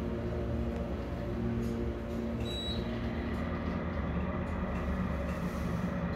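Fujitec hydraulic elevator car descending, its hydraulic drive giving a steady low hum heard from inside the cab. A brief faint high beep sounds about two and a half seconds in.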